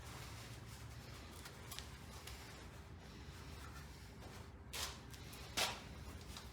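Faint handling noises with two short knocks, under a light room hum.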